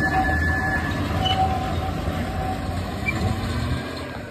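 Sugarcane-train diesel locomotive passing close by: the engine running under load and the wheels rumbling on the rails, with faint thin squeals. It fades near the end as it moves away.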